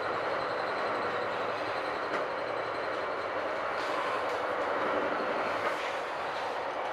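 Metra Rock Island Line commuter train heard from inside a passenger car: steady running noise of the car on the rails, with a faint high whine and a few faint clicks.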